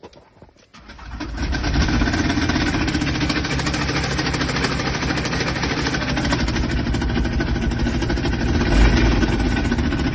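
1999 VW T4 van's 2.5-litre five-cylinder diesel engine starts up about a second in, then runs steadily at idle, with a brief rise in level near the end.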